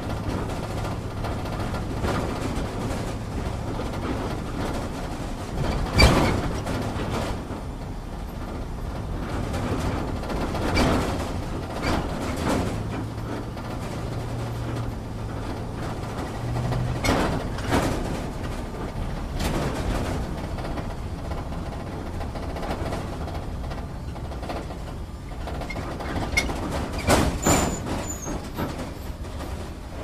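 Off-road vehicle cabin while driving over rough ground: a steady low engine drone with irregular knocks and rattles as the vehicle jolts over bumps. The loudest knock comes about six seconds in, and a cluster comes near the end.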